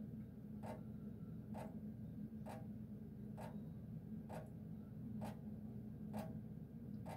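Kitchen faucet dripping into a stainless steel sink: single drops land in an even rhythm, just under one a second, each a short plink, over a steady low hum.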